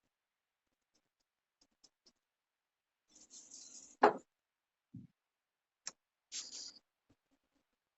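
Quiet pause broken by a few faint rustles and clicks: a short rustle, then a sharp click about four seconds in, a low thump a second later, and another click and rustle soon after.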